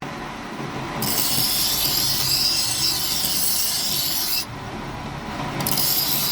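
Abrasive rubbing on the knife during restoration, in two long continuous passes about a second apart, with a harsh hiss.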